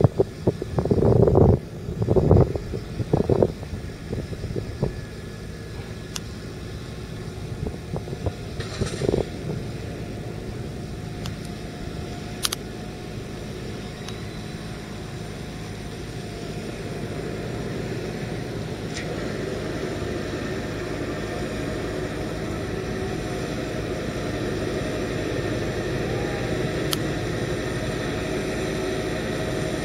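Fendt 927 Vario tractor's 7.8-litre six-cylinder turbocharged diesel running steadily under the load of a full water tanker, growing gradually louder as it approaches, with a faint steady whine. A few loud rumbling bursts in the first few seconds.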